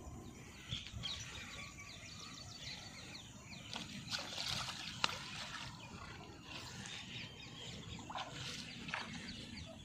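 Small birds chirping in quick, short calls throughout, with water sloshing and splashing about four seconds in and again later as a hooked carp is grabbed by hand in the shallows at the bank.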